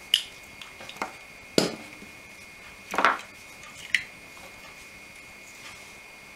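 Small hand tools clicking and tapping as they are handled and set down on a workbench: about five sharp knocks in the first four seconds, then only a faint steady high whine.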